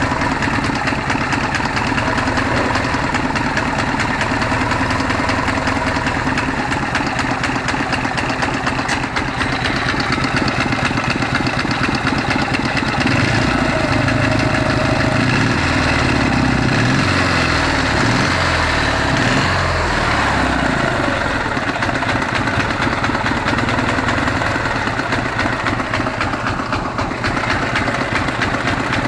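Ural engine idling cold with a knock, running unevenly, the engine note wavering about halfway through. The knock and the poor idle occur only when cold and go away once the engine warms up.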